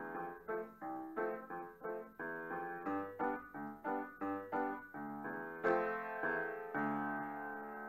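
Upright piano being played: a run of separately struck notes and chords, about three a second, rising to a loud chord near six seconds in, then a final chord held and left ringing.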